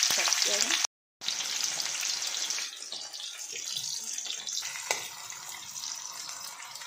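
Sliced onions sizzling in hot mustard oil in a kadhai: a dense, steady hiss that drops out briefly about a second in and settles lower after a few seconds. A single light metal tap, as of the spatula, about five seconds in.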